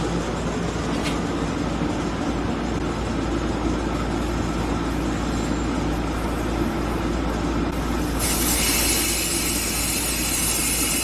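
Steady machinery noise in a tire shop, a constant low hum under a rumbling din. About eight seconds in a loud hiss starts and runs on to the end.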